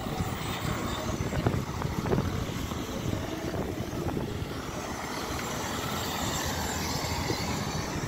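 A car driving past on a seafront road, with wind rumbling on the microphone throughout. Two sharp knocks come about a second and a half and two seconds in.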